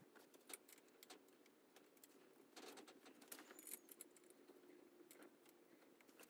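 Near silence with a few faint, scattered metallic clicks: washers and 5/8 nuts being picked up and threaded by hand onto the outdrive's mounting studs.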